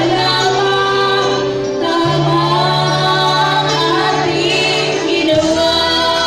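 Two women singing into microphones through a PA, with instrumental backing. The backing's low held notes change about two seconds in and again near the end.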